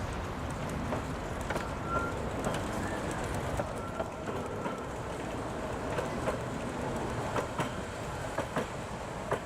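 Minimum-gauge park train running along its track with a steady rumble and irregular sharp clicks from the wheels and rails. Two brief, faint wheel squeals come in the first half.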